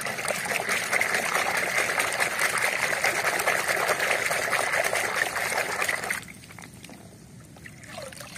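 Muddy water sloshing and splashing in a plastic basin as a hand scrubs a mud-caked toy tractor under the surface. The splashing stops about six seconds in, and only faint dripping and trickling follow as the toy is lifted out.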